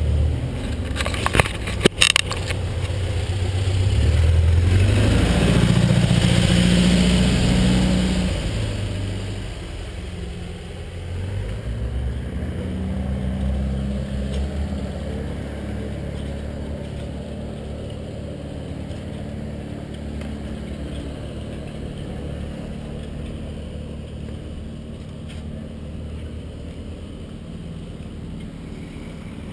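Mountain bike with a handlebar-mounted camera, heard through that camera: a few sharp clicks and knocks near the start as the bike is handled. Then a low rumble of riding over paving stones, which swells for a few seconds early on and then settles to a steadier level.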